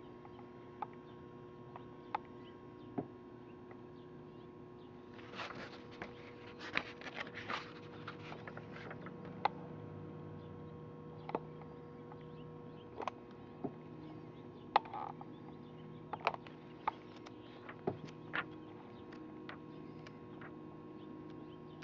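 Pages of a 1966 TV Guide magazine being turned by hand: a short stretch of paper rustling about five to eight seconds in and scattered light clicks of handling, over a steady electrical hum.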